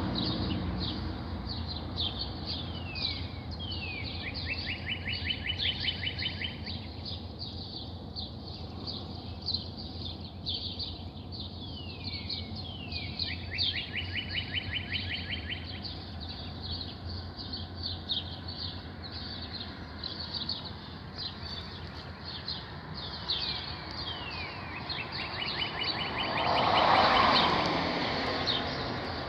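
Several birds chirping constantly, short high notes, with a rapid trilled song three times. A louder rushing noise swells and fades near the end.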